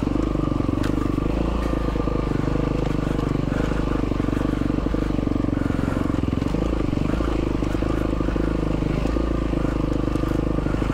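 Yamaha WR450F dirt bike's single-cylinder four-stroke engine running steadily, with little change in revs, as the bike rides along a rough dirt track.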